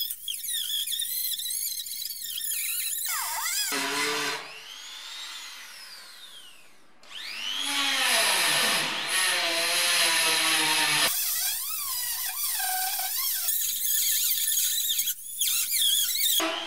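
Small handheld rotary grinder whining at high speed on the car's steel bodywork, its pitch sagging and recovering as it bites. It eases off about four seconds in and picks back up about three seconds later.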